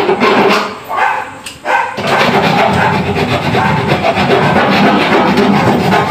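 Handheld power drill working during a kitchen cabinet installation: a few short bursts, then running continuously from about two seconds in.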